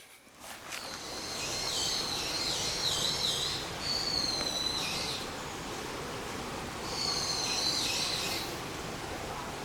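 Wild birds calling with high, wavering whistled notes, in two spells with a pause between, over steady outdoor background noise.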